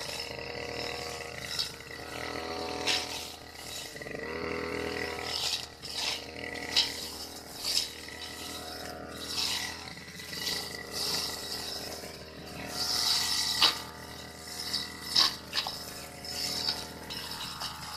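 Backpack brush cutter engine running steadily while the cutting head slashes through tall grass, with frequent sharp snaps and swishes as it strikes stems.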